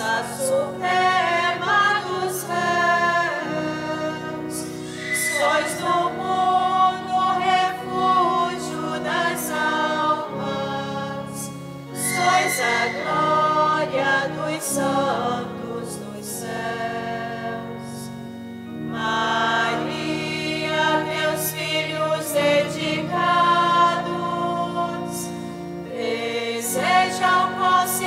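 Choir singing a hymn, sung phrases over sustained low held chords that change every few seconds. It is sung during the distribution of communion at a Traditional Latin Mass.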